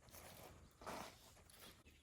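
Near silence, with faint scattered ticks and one brief soft rustle about halfway through.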